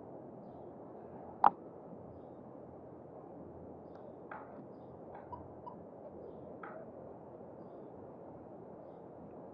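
Muffled city street ambience: a steady hum of traffic and city noise. A single sharp click about a second and a half in, and a few faint short chirps in the middle.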